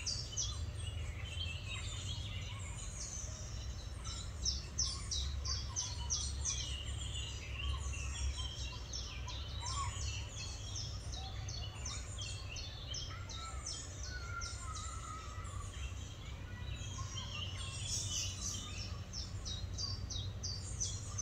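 Small songbirds singing and chirping, quick series of high notes and short trills one after another, over a steady low rumble.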